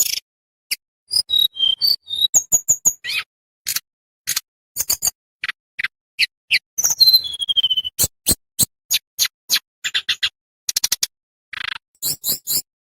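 Tledekan bambu, a small songbird, singing a rapid string of short, sharp, high chips and trills. Here and there it adds a clear whistled note that slides down in pitch.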